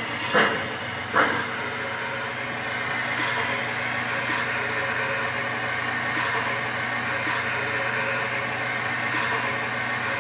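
A G-scale Union Pacific FEF-3 steam locomotive model's Proto-Sound 3 system plays steady standing-steam hiss through its small onboard speaker, with a low electrical hum underneath. Two short bursts sound in the first second or so, then the hiss holds steady.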